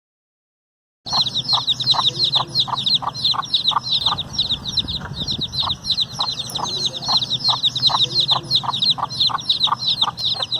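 Chicks peeping: a dense run of short, high, downward-sliding peeps, several a second. The peeps start about a second in, after a moment of silence.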